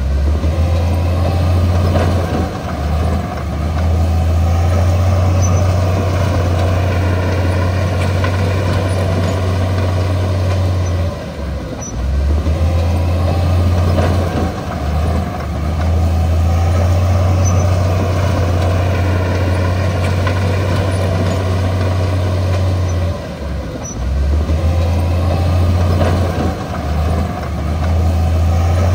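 Crawler bulldozer's diesel engine running with a steady low drone, which dips briefly twice, about every twelve seconds.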